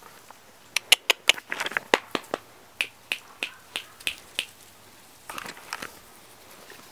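Standard poodle puppies yipping: a run of short, high yips about three a second, then a rougher yelp near the end, with a few sharp clicks just before the yips begin.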